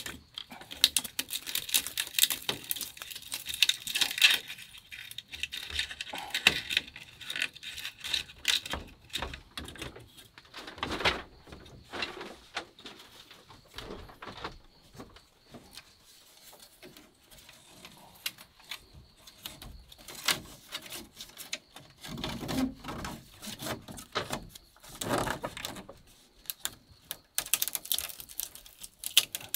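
Dry bamboo strips and slats clicking, rattling and rustling as they are threaded and tied by hand into an overhead bamboo lattice. The clicks come in quick runs, densest over the first several seconds and again near the end.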